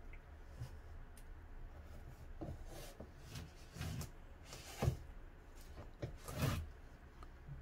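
Cardboard box scraping and rustling as a cat rubs its head and cheek against the flaps, in several short strokes, the loudest about five and six and a half seconds in.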